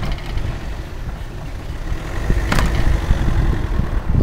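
Wind buffeting the microphone of a camera carried on a moving bicycle, with ride noise from the bike, a steady low rumble. About two and a half seconds in there is one sharp clack with a brief ringing tone after it.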